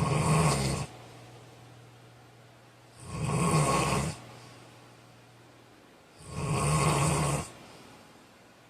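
A man snoring loudly, three snores about three seconds apart, each lasting about a second. A faint steady hum is heard between them.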